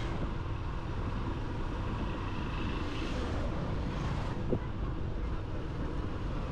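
Wind rushing over the microphone and road noise from a moving motorcycle, a steady low rumble, with one brief knock about four and a half seconds in.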